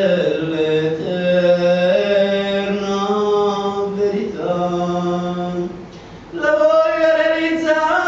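A man singing a devotional bhajan in a chant-like style, holding long notes that shift slowly in pitch. There is a short break about four seconds in and a breath pause about six seconds in.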